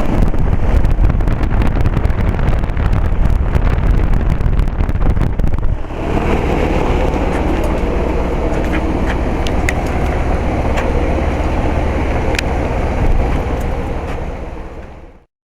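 Outdoor condensing unit of a 1999 Rheem 4-ton heat pump running in cooling mode: steady compressor and condenser-fan noise with a low hum. The sound turns rougher and crackly for the first six seconds or so, then steadier, and cuts off suddenly near the end.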